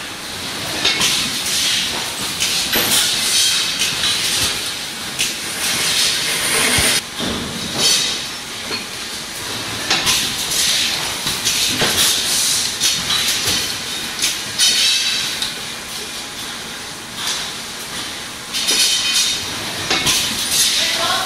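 Servo cross-web labeller and packaging line running: continuous machine clatter with repeated bursts of hiss every second or two.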